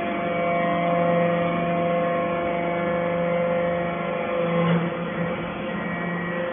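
Steady mechanical hum of running machinery, made of several held tones, shifting slightly about two-thirds of the way through.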